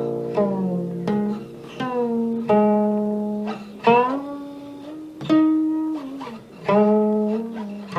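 Background music: a plucked string instrument playing a slow melody of single notes, several of them sliding up or down in pitch.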